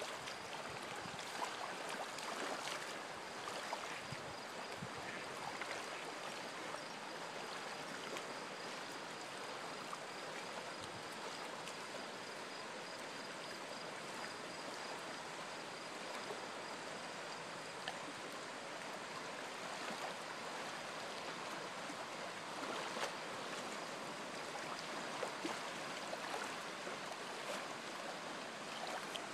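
Steady, fairly quiet rush of water along a beach shoreline, with a few faint ticks scattered through it.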